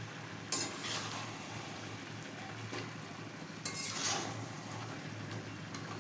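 Mutton, potato and papaya pieces frying in masala in a metal kadai (kosha stage), a steady low sizzle, with a few scrapes of a metal spatula stirring against the pan, the loudest about four seconds in.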